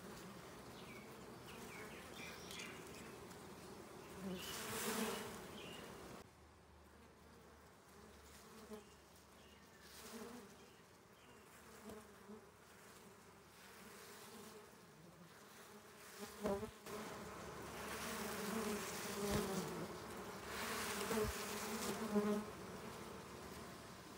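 A cluster of dwarf honey bees (Apis florea) buzzing steadily on their open comb, a low hum. The noise swells louder about five seconds in and again in the last third, and a brief knock comes about two-thirds of the way through.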